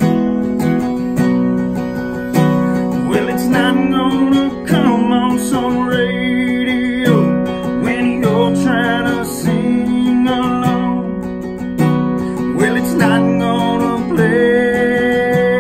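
Country ballad on two strummed acoustic guitars, with a harmonica playing a melody over them in wavering notes and ending on one long held note near the end.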